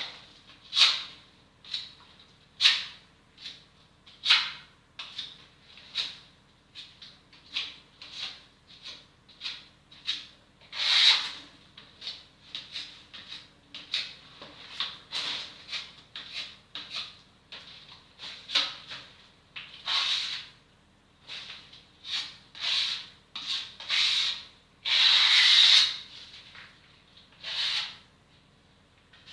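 Repeated short rubbing strokes, about one or two a second, with a few longer strokes; the longest lasts about a second and a half near the end.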